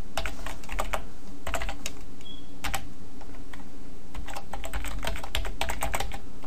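Typing on a computer keyboard: bursts of quick keystrokes with short pauses between them, over a steady low hum.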